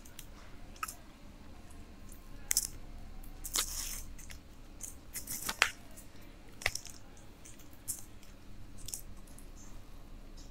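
Eating a kulich (Easter sweet bread): chewing and mouth sounds, with sharp crackles of its paper baking wrapper being peeled back, loudest around the middle.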